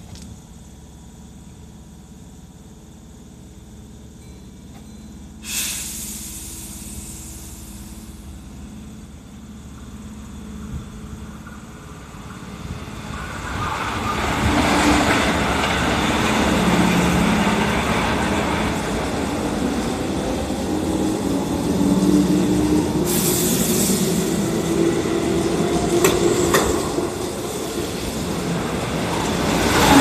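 Keihan 2400 series electric train standing with a steady low hum, then a sudden hiss of air about five seconds in. From about twelve seconds in it pulls away, and its motor whine slowly rises in pitch over wheel and rail noise, with another short hiss of air partway through.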